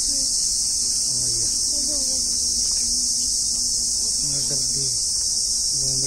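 A steady, high-pitched insect chorus that holds unbroken throughout, with faint voices of people talking underneath it.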